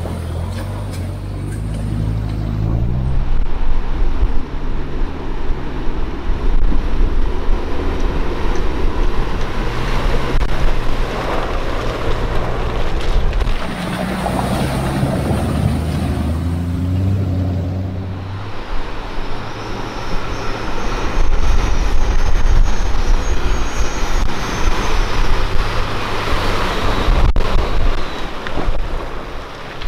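Four-wheel-drive vehicles fording a river: engines running under load, their pitch rising and falling, with water surging and splashing around the wheels.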